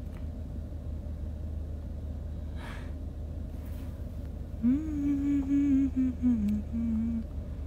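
A woman humming a few notes of a tune, stepping slightly downward in pitch, starting about five seconds in, over the steady low rumble inside a car.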